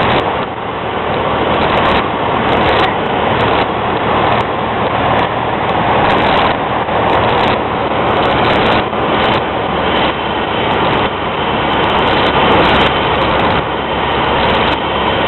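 Cessna 150 light plane coming in to land: its engine and propeller make a steady, loud rushing sound.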